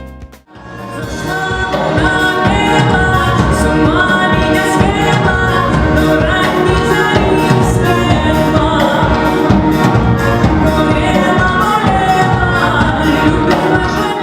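Music with singing: a song with vocals over instrumental accompaniment. It starts just after a brief break about half a second in and builds up over the next second or so.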